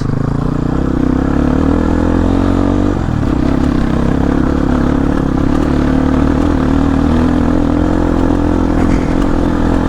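Motorcycle engine running steadily, with a brief drop in engine pitch about three seconds in before it picks up again.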